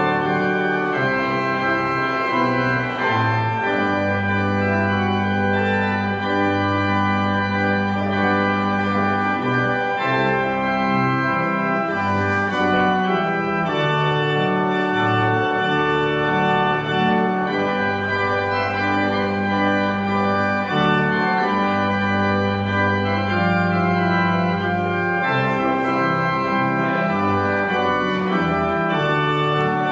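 Church organ playing a slow piece of sustained chords over long-held bass notes, the harmony changing every second or two.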